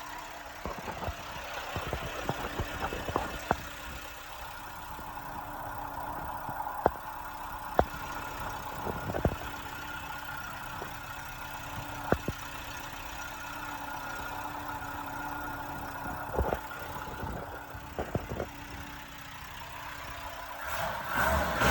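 Mitsubishi Lancer Celeste engine idling steadily, with scattered sharp clicks over it, and starting to get louder near the end.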